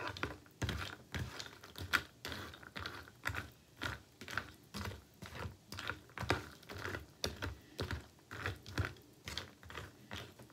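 Metal spoon stirring and scooping crispy oat cereal puffs in milk in a bowl: a steady run of short clicks and crunches about twice a second.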